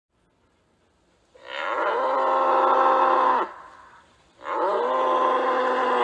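Bull bellowing twice: two long, loud calls, each rising in pitch at the start and then held steady, with about a second's pause between them.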